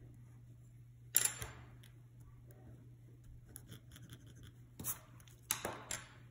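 Drawing tools set down and picked up on a hard tabletop: one sharp clack about a second in, then a few more clacks and rustles near the end, over a faint steady hum.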